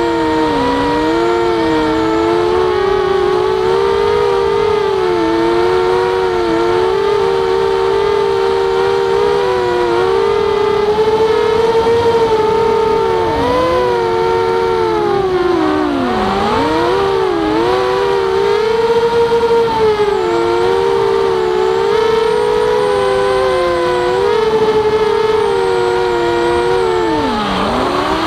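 Walkera Rodeo FPV quadcopter's electric motors and propellers whining in flight, close up at the onboard camera. Several steady tones waver and dip in pitch with throttle changes, with a deep dip around the middle and another near the end.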